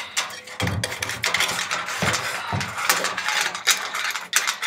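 Hoymiles HM-700 microinverter being handled and fitted against a corrugated metal wall, with a run of irregular knocks, clicks and scrapes of metal on metal.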